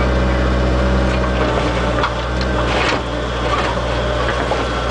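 A Bobcat mini excavator's diesel engine runs steadily while its bucket works over broken asphalt, giving scattered knocks and scrapes about one and a half to three seconds in.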